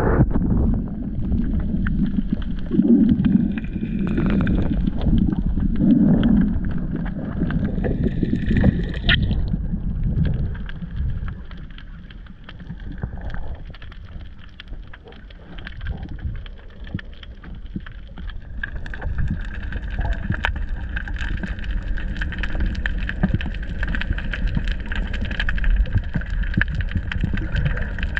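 Muffled underwater sound from an action camera in a waterproof housing: a low rumble and sloshing of water moving around it, with louder surges in the first several seconds. About two-thirds of the way in, a faint steady whine joins the rumble.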